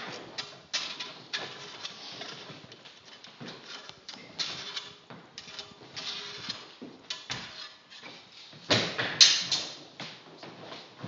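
Footsteps shuffling and stepping on a wooden floor as sword fencers move about, a scatter of light knocks, with a louder burst of noise about nine seconds in.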